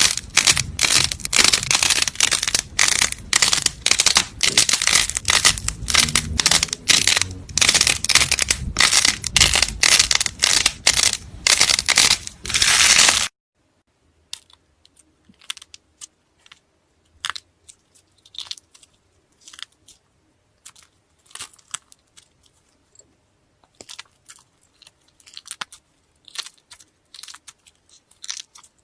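Slime being worked by hand, giving loud, dense crunchy crackling. About halfway through it cuts off suddenly and is followed by much quieter, sparse clicks and squishes.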